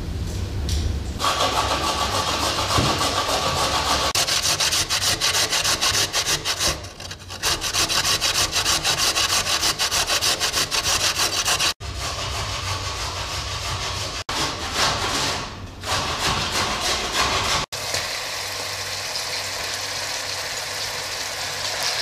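Fast, rhythmic scraping strokes in several stretches, each broken off by a sudden cut. A steadier hiss takes over for the last few seconds.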